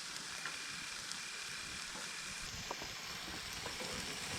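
Onion-and-spice masala for an egg curry sizzling steadily in a pan, with a few light ticks.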